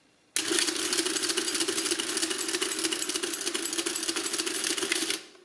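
Precisa 364 electric adding-listing machine running an automatic multiplication: its motor hums steadily under a rapid, even mechanical clatter of the calculating cycles. It starts about a third of a second in and stops abruptly shortly before the end.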